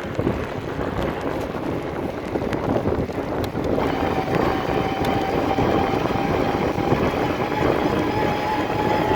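Shimano E8000 mid-drive e-bike motor whining at a steady pitch. The whine sets in about four seconds in, over wind and tyre noise, and a few clicks come in the first seconds.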